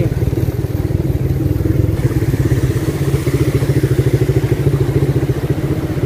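Motorcycle engine running steadily close up, its rapid firing pulses even throughout as the bike rides along.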